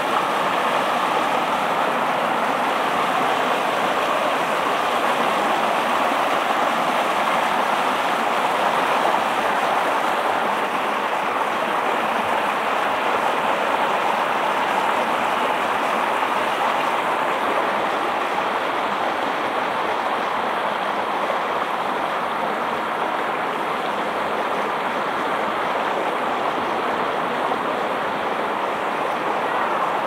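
Small rocky stream rushing and splashing over boulders, a steady even rush of water that eases off a little in the later part.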